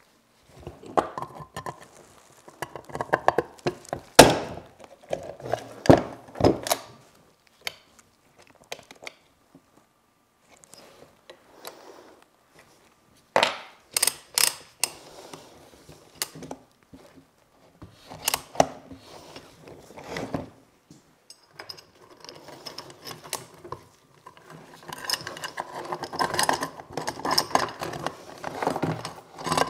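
Hand chain hoist being reassembled and worked by hand: irregular metal clanks, knocks and clinks, then a busier run of rattling and clinking in the last five seconds.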